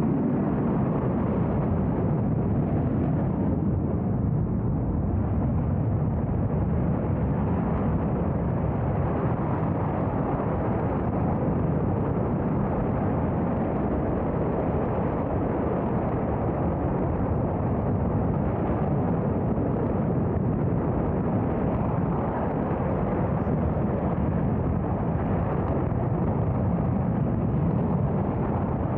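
Space Shuttle Main Engine, a liquid-hydrogen/liquid-oxygen rocket engine, in a static test firing: a steady, unbroken rocket roar, strongest in the low range.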